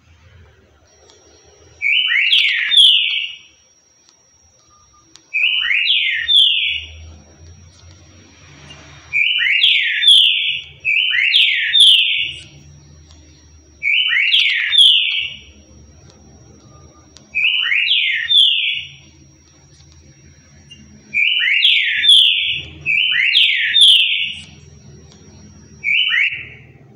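Trinca-ferro (green-winged saltator) singing the 'currucutil' song: nine short, loud phrases of quick downward-sliding whistled notes, each about a second long, repeated every two to four seconds. A faint steady high whine and low background noise sit under the song.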